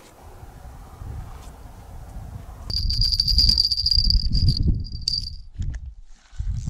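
Insect chirring: a high, steady, finely pulsing buzz that starts about two and a half seconds in, breaks off once and returns briefly before stopping, over a loud low rumble.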